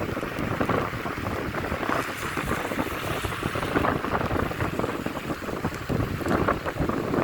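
Heavy rain falling in a strong wind, with gusts buffeting the microphone.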